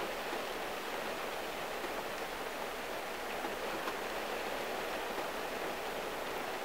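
Steady rain falling on a car, heard from inside the cabin: an even patter on the roof and windshield with a few single drops ticking.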